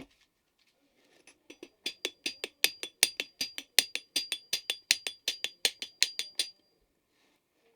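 Rapid, even hammer taps on a metal part, about six a second, with a bright metallic ring; they build up in loudness after about a second and stop abruptly near the end.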